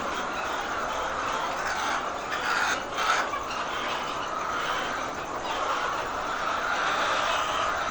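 Flock of laying hens clucking together in a steady din, with a few sharper clicks or knocks about three seconds in.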